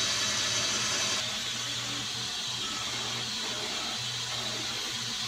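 Floor-standing bandsaw running and cutting a curve through a wide hardwood panel on a circle-cutting jig: a steady motor hum under a hissing blade, the hiss easing a little about a second in.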